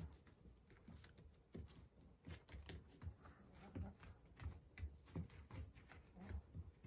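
Near silence with faint, irregular small clicks and soft taps scattered throughout.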